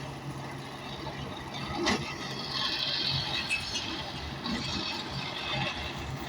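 Construction site noise: a steady machine hum with scattered metallic clinks, and one sharp knock about two seconds in.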